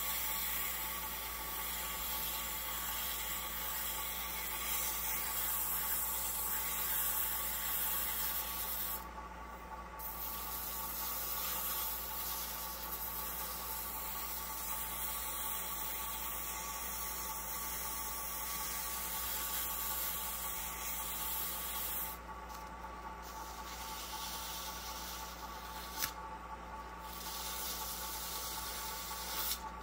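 Sandpaper pressed by hand against a wooden pen blank spinning on a lathe mandrel: a steady hiss over the lathe's motor hum. The hiss stops briefly about nine seconds in and twice more after twenty seconds as the paper comes off the wood, and there is a single sharp click near the end.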